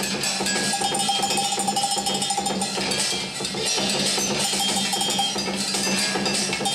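Fast, continuous metallic percussion: dense clanking strikes with ringing, bell-like tones, played live for the shadow-dance performance.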